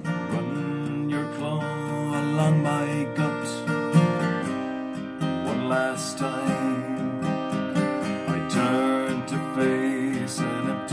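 Acoustic guitar strummed with a capo on the third fret, cycling the chords A minor, F major 7, G and A minor, with a man singing along in stretches.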